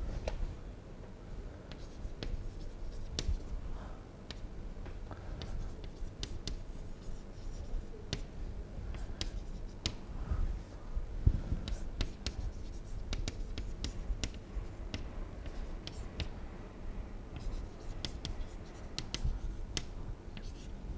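Chalk writing on a blackboard: irregular sharp taps and scratches as the chalk forms letters stroke by stroke, over a low room rumble.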